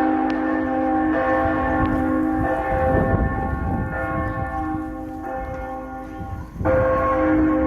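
Church bells ringing, several bell tones sounding together and hanging on as they fade. A fresh strike comes in sharply near the end.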